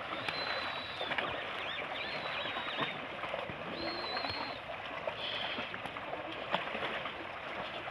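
A herd of cattle wading through a shallow muddy canal, their legs and hooves sloshing and splashing in the water. Several short high bird calls ring out over it.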